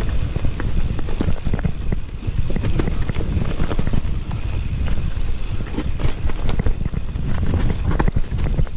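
Mountain bike descending a wet dirt trail: a low rumble of tyres over the ground and wind rushing over the microphone, with frequent clicks and rattles from the bike as it bounces over bumps.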